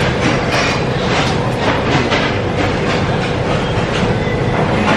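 Sushi restaurant's conveyor belt running, a steady mechanical rattle with a regular clatter a few times a second under a constant hum.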